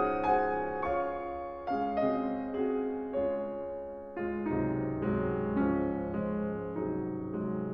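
Slow background music of single struck notes and chords. Each note rings and fades, and a new one comes about every half second.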